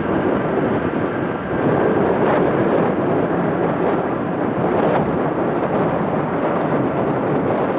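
Airbus A350's Rolls-Royce Trent XWB turbofan engines at takeoff thrust as the airliner lifts off and climbs away: a steady, loud rumble of jet noise.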